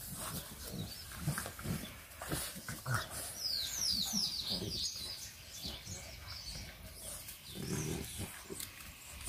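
Two English bulldog puppies play-wrestling, making short, low, irregular vocal sounds as they mouth at each other.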